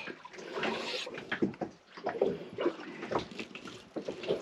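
Scattered light clicks and knocks of hands handling food-preparation gear as fish is readied for cutting.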